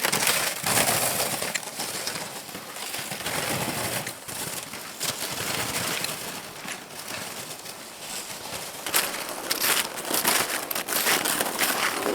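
Footsteps crunching through snow, an uneven run of crunches that grows louder for a couple of seconds near the end.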